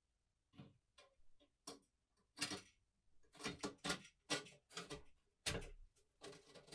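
An irregular run of light clicks and taps from small hard objects being handled, a few scattered at first, then coming quickly one after another from a little over two seconds in.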